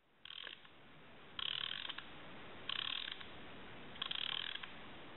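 Hand-cranked wooden gear train of an automaton turning with a steady low whir, broken by four short, rapid ratcheting rattles at an even pace just over a second apart.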